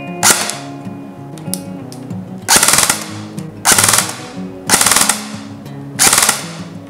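VFC M4 CQB-R airsoft electric gun (AEG) firing: one quick shot, then four short bursts of about half a second each, each a fast rattle of the gearbox cycling. Running on an 11.1 V LiPo battery, with a very good trigger response.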